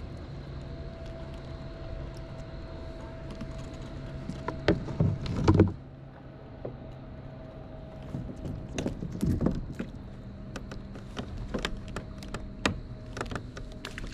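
Irregular knocks and clatter of gear being handled in a kayak, loudest in a cluster about five seconds in, with a few more sharp ticks and knocks in the second half.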